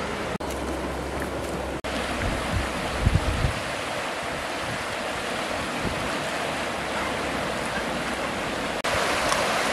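Steady rush of a flowing river, with a few low thumps about three seconds in.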